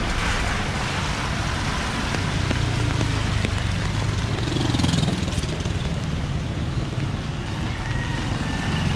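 Street traffic: a motor vehicle's engine running close by over a steady hiss, its pitch rising about halfway through.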